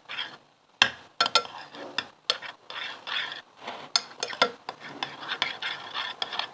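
A spoon stirring glue and shaving foam in a bowl to make slime. The spoon clinks and scrapes irregularly against the bowl, starting about a second in.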